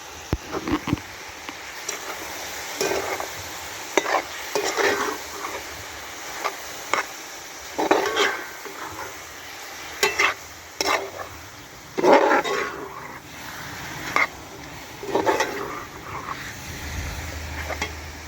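Brown stew chicken frying in a pot and being stirred. A spoon scrapes and knocks against the pot at irregular intervals over a steady sizzle.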